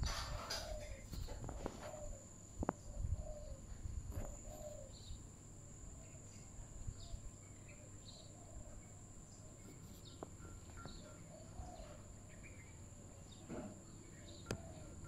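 Outdoor ambience: a steady high insect drone, with birds calling over and over in short chirps. A few clicks and low bumps in the first few seconds.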